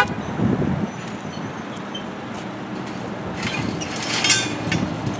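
Steady outdoor traffic and vehicle noise, with a brief clatter with a few high ringing notes about four seconds in.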